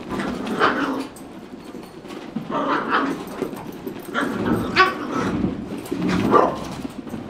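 Small dogs making play noises as they wrestle, in about four short bouts a second or two apart.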